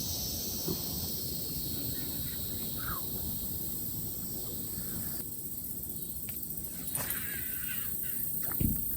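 Steady high insect buzzing over a low rumble of wind on the microphone, with a few short faint squeaks, the clearest about seven seconds in, and a dull thump near the end.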